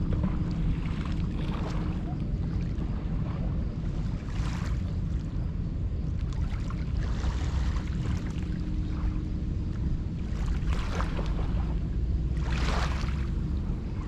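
Small lake waves washing against a rocky shore, a splash every second or few, over a steady low rumble of wind on the microphone.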